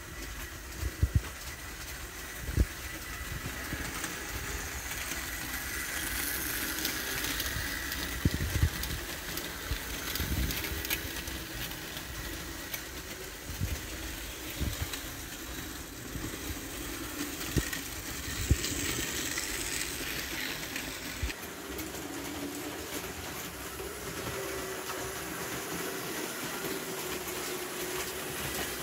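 Electric model train running on its track: a steady motor whirr with wheels clicking and knocking irregularly over the rail joints. The sharpest knocks come in the first few seconds.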